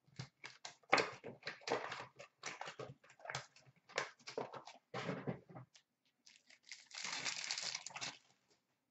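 Card packs and their wrappers being handled: repeated short crinkling and rustling for the first six seconds, then a longer, denser rustle about seven seconds in.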